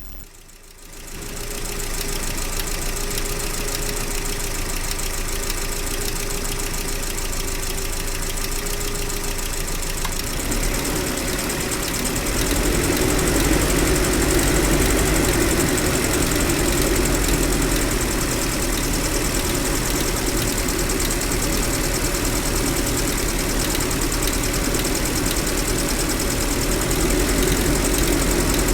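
UMZ-4216 inline-four petrol engine idling with a knock under the valve cover that comes every second to second and a half. The knock comes from a pushrod head catching the corner of its bore in the new cylinder head, and grinding the pushrod has not cured it. The engine sound starts about a second in and gets louder about ten seconds in.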